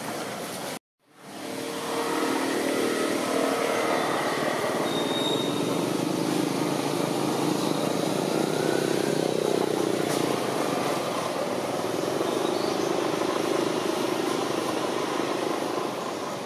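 Steady outdoor road-traffic noise, vehicles passing. The sound cuts out to silence briefly about a second in, then fades back up.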